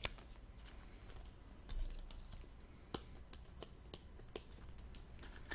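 Faint, irregular light clicks and taps, with a soft rustle about two seconds in.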